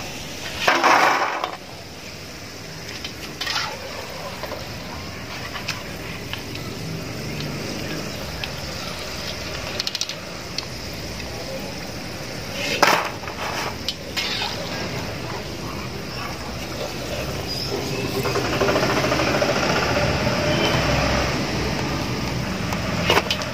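French fries in hot oil and being lifted out: a steady sizzle with several sharp clinks and knocks of a metal utensil against the pan. The sizzle thickens for a few seconds near the end.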